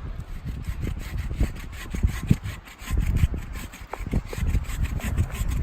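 Hand saw cutting through the trunk of a small conifer Christmas tree near the ground, in quick back-and-forth strokes.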